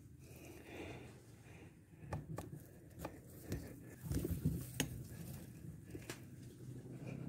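Faint handling noise as the rifle and scope camera are moved about after the shot: a string of scattered sharp clicks and knocks with light rustling, and a short low rumble about four seconds in.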